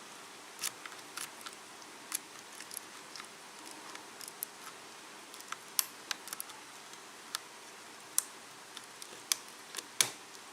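Steel lock pick working the pin stacks of a Kwikset KIK pin-tumbler cylinder during single-pin picking: about a dozen light, irregular metallic clicks and ticks, the sharpest near the end.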